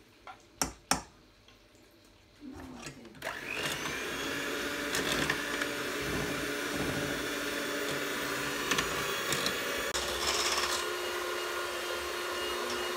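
Handheld electric mixer switched on about three seconds in and running steadily, its beaters whirring through cookie batter in a stainless steel pot; the motor's hum steps up a little in pitch about ten seconds in. Two sharp taps come about a second in, before the mixer starts.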